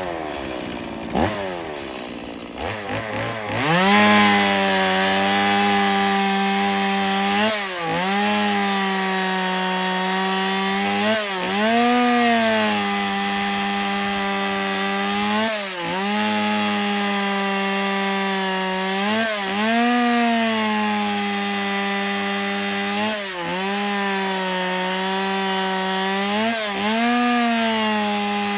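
Stihl MS170 two-stroke chainsaw cutting black walnut. It revs up to full throttle a few seconds in, then holds high speed in the cut, its pitch dipping briefly under load and recovering every few seconds.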